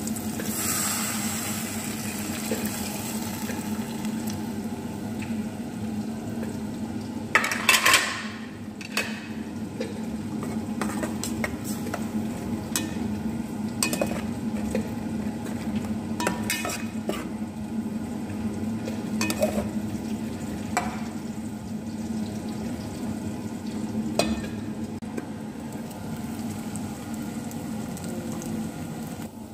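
Metal spoon stirring and scraping sauce and onions in a hot pan, with steady sizzling and scattered clinks of the utensil against the pan. One short, louder surge of noise comes about seven and a half seconds in.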